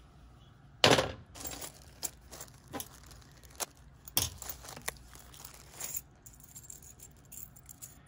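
Clicks and light clatter of a plastic plug housing and small brass terminal parts being handled and set down on a steel worktable, with a plastic parts bag rustling. The sharpest click comes about a second in, with scattered smaller clicks after it.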